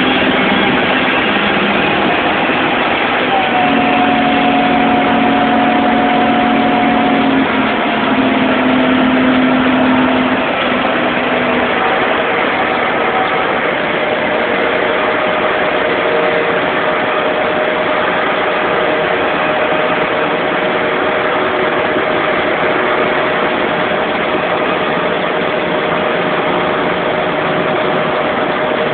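Large diesel engine of a Komatsu 785-5 rigid mining dump truck running steadily under way. It carries a steady whine that steps down in pitch a few seconds in and again about halfway through, with a lower hum that comes and goes in the first ten seconds or so.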